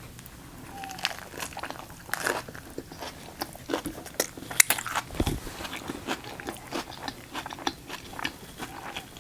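Close-miked chewing of a mouthful of food: many small, irregular crunches and wet mouth clicks. There is a low thump a little after five seconds.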